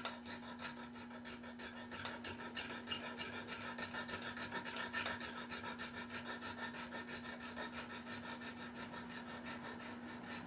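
Hand file rasping in quick strokes, about three a second, against the cut-off end of a clock wheel's arbor held in a lathe, filing it flat where the worn pivot was clipped off for a pivot repair. The strokes fade after about six seconds, over the lathe's steady hum.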